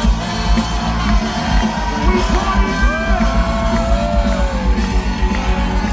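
Live band music with a heavy, steady bass beat, heard loud from inside a crowd, with people whooping and yelling over it.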